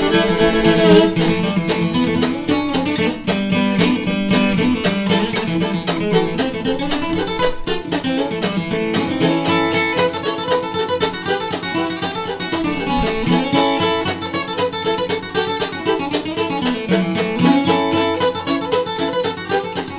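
Bluegrass music with acoustic guitar and banjo picking.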